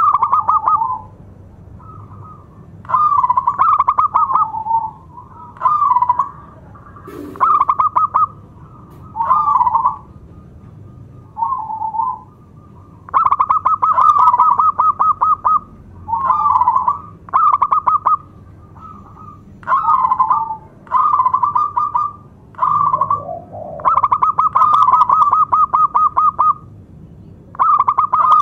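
Zebra dove (perkutut) cooing: about a dozen phrases of rapid, trilling coos, each a second or two long, separated by short pauses.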